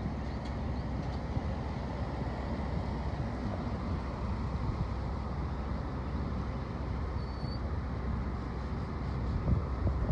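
Steady low background rumble outdoors, with no distinct events.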